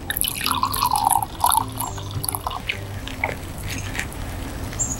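Wine poured from a bottle into a glass: a gurgling pour for the first two and a half seconds or so, then a faint click.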